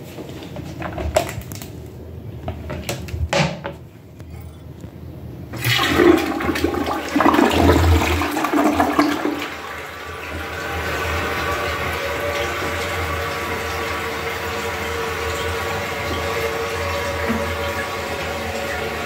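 Toto two-piece toilet flushing: a few light knocks, then about five and a half seconds in a loud rush of water through the bowl that lasts some four seconds. After that the tank refills with a steady hiss.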